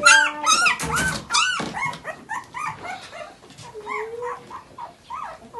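Young puppies, about two weeks old, squealing and whining: many short, high cries in quick succession, loudest and thickest in the first two seconds, then fewer and softer, with one longer whine about four seconds in.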